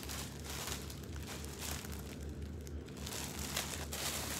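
Clear plastic bag crinkling as the clothing packed in it is handled and turned over, in irregular rustles.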